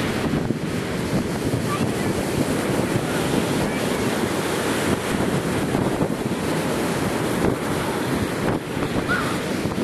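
Ocean surf washing in steadily, with wind rushing against the microphone.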